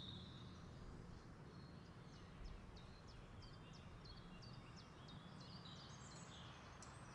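Faint outdoor ambience: a small bird calling in a quick run of short, high, falling chirps, over a steady low rumble.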